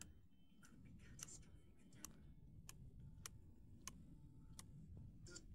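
Near silence: a low room hum with faint, evenly spaced ticks starting about two seconds in, roughly three every two seconds.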